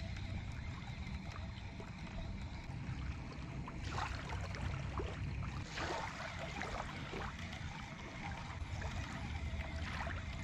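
Small waves lapping at the water's edge in a few soft splashes, over a steady low rumble of wind on the microphone.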